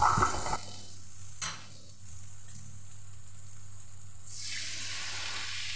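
Hot water poured from a bowl into a hot nonstick pan of fried spice paste and potatoes, sizzling and hissing as it hits. A brief scrape of the spatula comes at the very start.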